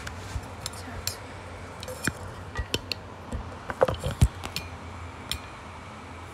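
Handling noise of a phone being moved and set in place: scattered light clicks and taps, with a couple of louder knocks about four seconds in, over a faint low steady hum.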